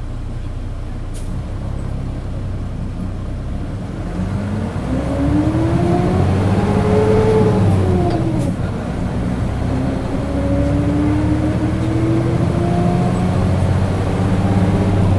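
Mitsubishi Fuso KC-MP617K city bus engine pulling away under acceleration, its drone joined by a loud whine that rises in pitch, drops at a gear change about halfway through, then climbs again. The bus sounds far from its stock engine note, which the uploader suspects comes from some fault or trouble.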